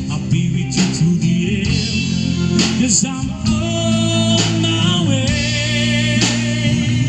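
Live amplified rock band playing: a man singing into a handheld microphone over electric guitars, bass guitar and a drum kit, with drum hits every second or so.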